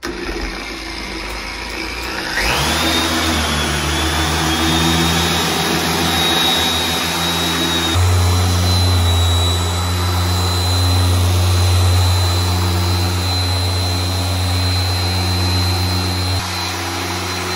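Porter-Cable 7424XP dual-action polisher with an orange foam pad running on car paint, polishing at its top speed setting. It spins up with a rising whine about two seconds in and then runs steadily with a high whine over a low hum. The hum grows louder about eight seconds in.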